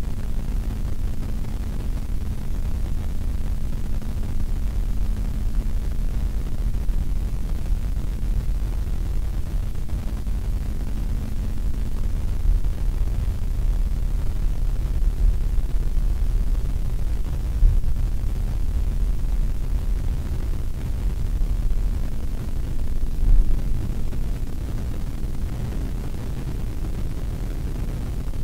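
Airliner's turbofan engines at takeoff thrust and the wheels running down the runway, heard from inside the cabin as a steady deep rumble with a few heavier jolts. The rumble eases a little near the end as the aircraft lifts off.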